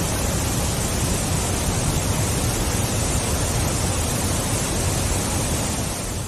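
Waterfall: a loud, steady rush of falling water with a heavy low rumble beneath a hissing spray, dipping slightly just at the end.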